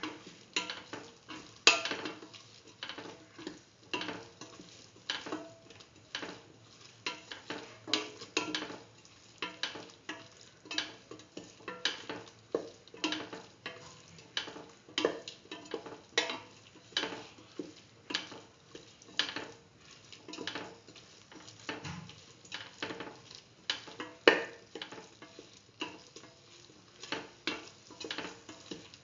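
A spoon stirring ash gourd pieces, onion and tomato in a metal pot, scraping and knocking against the sides and bottom in irregular strokes about one to two a second.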